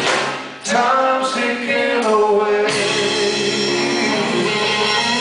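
Live rock band playing electric guitar and bass, with a male voice singing long held notes. The sound drops briefly about half a second in, then comes back in full.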